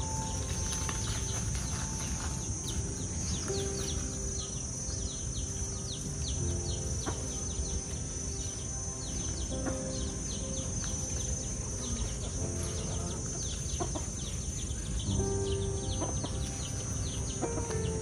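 Outdoor ambience: birds chirping many times a second in quick falling chirps over a steady high insect drone.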